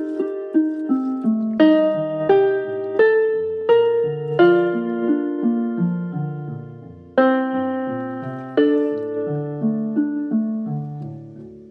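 Instrumental piano music without singing: chords and a walking bass line struck about once a second, with one chord left to die away before a loud new chord about seven seconds in.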